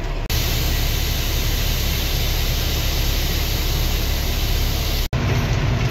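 Grain truck's engine droning steadily inside the cab under an even, loud hiss, with no change in pace. The sound begins and ends abruptly.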